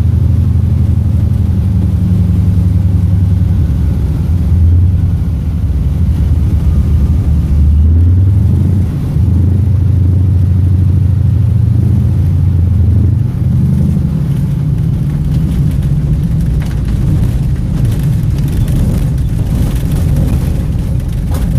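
Light aircraft's piston engine and propeller droning steadily, its pitch shifting a few times as the power changes, with a rougher, rumbling texture in the later part.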